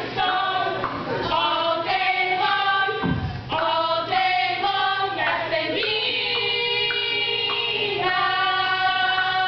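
A group of girls singing together, several voices at once in overlapping parts, with long held notes.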